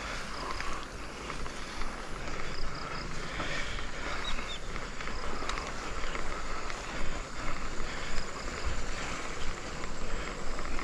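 Mountain bike rolling along a grassy track, its tyres and frame pushing through tall grass: a steady rushing and swishing with small irregular ticks and rattles, mixed with wind on the microphone.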